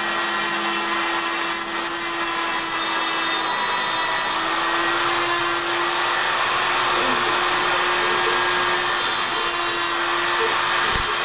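Handheld die grinder running at a steady whine while grinding metal and throwing sparks. The high, hissing grinding noise drops back briefly a few times as the contact eases off.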